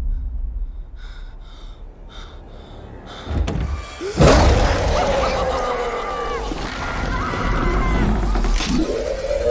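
Film sound effects of a giant statue coming to life: a heavy thud about three and a half seconds in, then loud creaking and groaning with bending pitch that rises and falls as its axe swings down.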